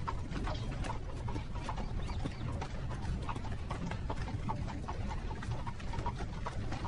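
Horse-drawn carriage on the move: horses' hooves clip-clopping in a quick, irregular patter over a steady low rumble.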